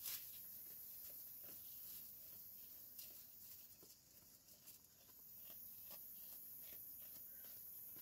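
Faint rustling and crunching of a Dorper sheep pulling hay from a slow-feed hay net and chewing it, with scattered soft clicks.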